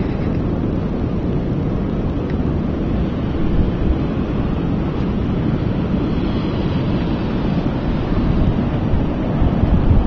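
Wind rumbling on the microphone over the steady wash of ocean surf, gusting a little harder near the end.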